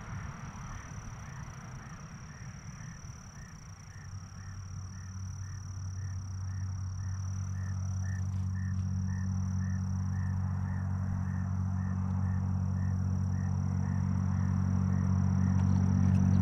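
A low engine drone that holds a steady pitch and grows steadily louder from about four seconds in. A faint high chirp repeats about twice a second behind it.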